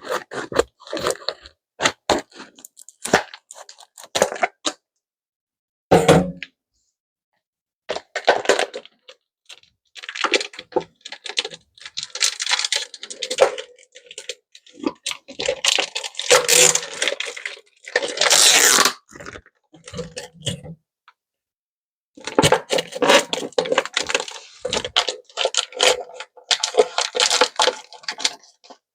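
Plastic meat packaging being torn and pulled open in a sink, with irregular crinkling, cracking and scraping that comes in bursts.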